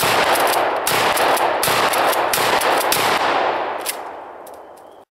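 A 12-gauge Mossberg pump-action shotgun fires once, a sharp blast followed by a long rolling echo. The echo stays loud for about three seconds, then fades and cuts off suddenly near the end.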